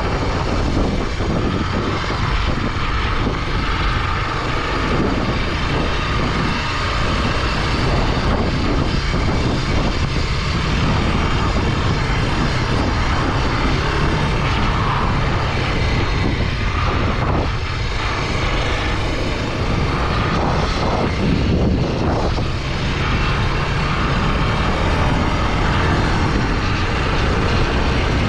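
Honda NX 250 single-cylinder motorcycle engine running steadily while riding off-road.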